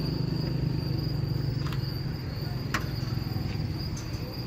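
Crickets trilling steadily in a high, unbroken tone over a low, steady rumble. Two sharp clicks come a second apart near the middle.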